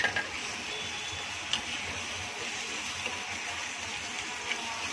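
Chopped onion, garlic and green chilli frying in oil in a kadhai, a steady sizzle, with a steel spoon stirring and clinking against the pan twice.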